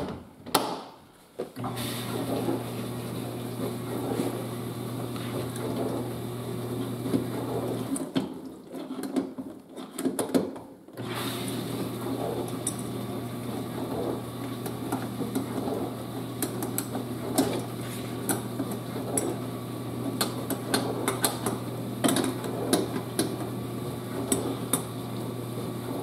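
Frigidaire dishwasher running: the pump motor's steady low hum with water spraying and splashing inside the tub, and light clicks and rattles. The hum starts about two seconds in, stops for about three seconds around the middle, then carries on.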